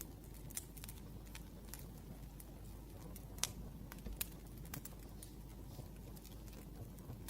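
Wood fire crackling: irregular sharp pops and snaps, the loudest about three and a half seconds in, over a steady low rumble.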